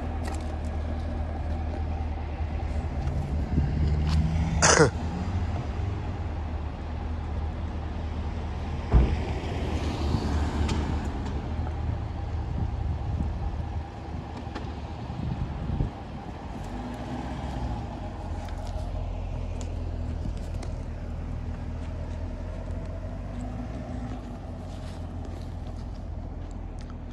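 Chevrolet Camaro's engine running with a low, steady rumble. A brief sharp high sound cuts through about five seconds in and a knock about nine seconds in, and the sound drops a little about fourteen seconds in.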